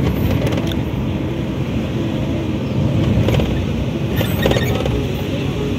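Steady low rumble of road and wind noise from inside a moving battery-powered electric rickshaw, with a couple of brief louder rattly patches about three and four and a half seconds in.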